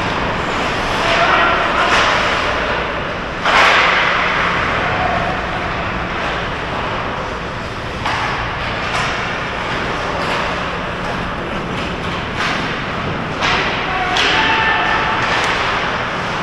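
Ice hockey play in a large indoor rink: skate blades scraping and cutting the ice, with sudden knocks and thuds of stick, puck and boards, the loudest about three and a half seconds in. Voices call out now and then.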